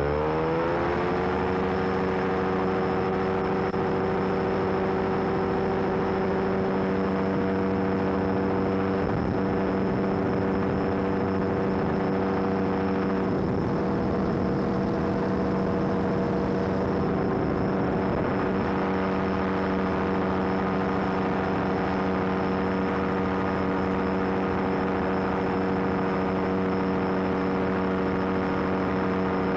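Weight-shift microlight trike's engine running at takeoff power during the climb-out, heard from aboard. Its pitch rises during the first second, then holds a steady note.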